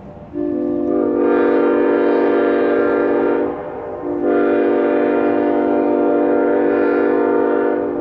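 Nathan K5LLA five-chime train air horn blowing two long chord blasts with a short break between them, the second one cut off just after the end.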